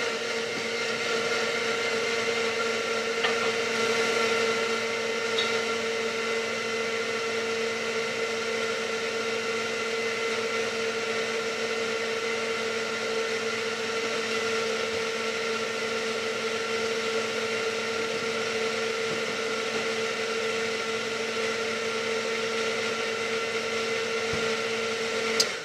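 Glass-jar countertop blender running at one steady speed, blending a milk, water and ice shake. Its motor hum holds a fixed pitch throughout, then it is switched off and stops abruptly right at the end.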